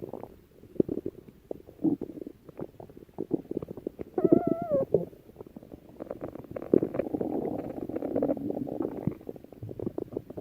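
Human stomach growling: irregular low gurgles and bubbling, with a short wavering, pitched growl about four seconds in and a longer rumble through the second half.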